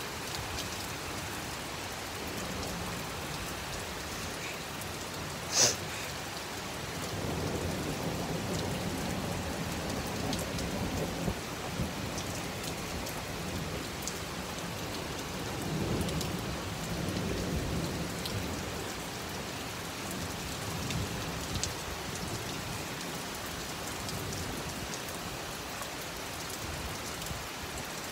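Heavy rain falling steadily, with two low rolls of thunder, one from about seven seconds in and another around sixteen seconds in. A single sharp crack sounds about five and a half seconds in.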